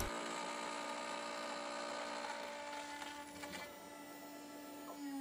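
A CNC router spindle runs steadily with a faint whine of several tones while a 1/8-inch single-flute cutter takes a light finishing climb cut in brass. Near the end the tones begin to fall in pitch.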